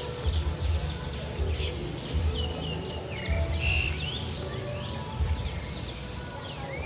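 Many small birds chirping and calling over one another at dusk, full of quick falling chirps and a few longer warbled notes. Low dull thumps recur about once a second underneath.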